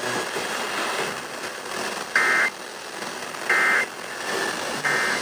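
Emergency Alert System end-of-message data tones: three short bursts of SAME data, each a fraction of a second long and about a second and a third apart, over a steady hiss of radio noise. They mark the close of the severe thunderstorm warning.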